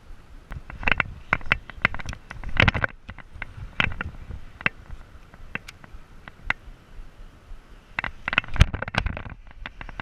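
Irregular knocks, clicks and scrapes, with a cluster about a second in and another near the end, typical of handling noise on a chest-mounted action camera as the angler moves and works the tackle.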